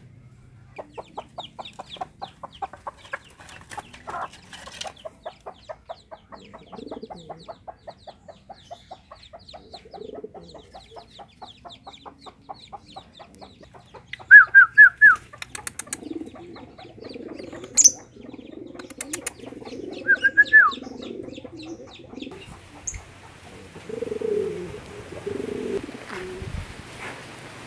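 Pigeons cooing in low, rolling phrases through the second half, with a rapid, even run of clicking calls for the first half and two loud bursts of short, sharp chirps about halfway and again a few seconds later.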